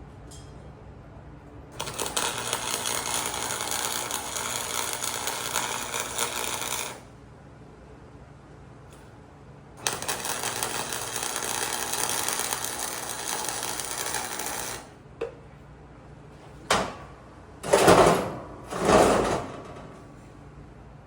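Arc welding: two steady welds of about five seconds each, the arc crackling and buzzing. These are followed by a few short, loud bursts of noise near the end.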